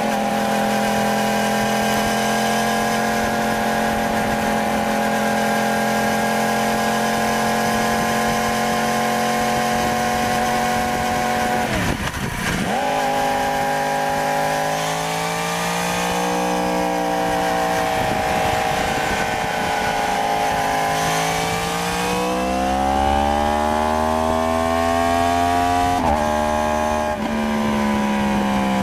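2015 Yamaha R1's crossplane inline-four engine running under way, picked up by a microphone mounted on the bike. The engine note holds steady, dips sharply and recovers about twelve seconds in, then climbs under acceleration with two brief breaks and falls away near the end.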